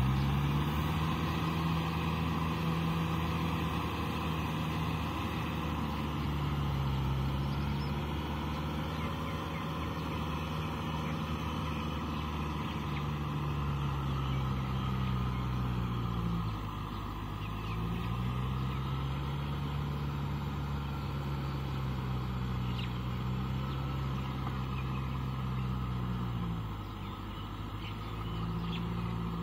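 Farm tractor engine running steadily as the tractor tills a flooded rice paddy with a rotavator. The engine speed dips briefly twice, about 16 and 27 seconds in, and picks up again each time.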